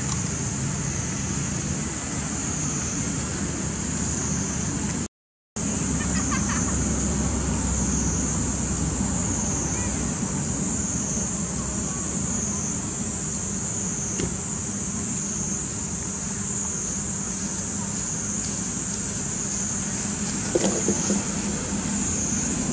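Steady outdoor background noise: a low rumble like distant road traffic under a high even hiss, cut by a brief gap of silence about five seconds in. A couple of faint short high calls come through, around six and twenty seconds in.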